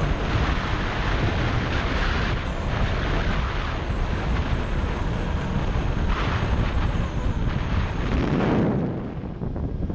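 Wind rushing over a motorcycle-mounted action camera's microphone at road speed, with a Kawasaki Ninja 250's parallel-twin engine running underneath. The hiss eases about nine seconds in.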